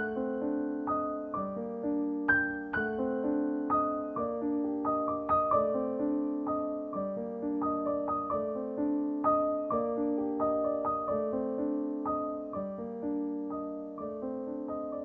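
Background piano music: a gentle, steady stream of notes.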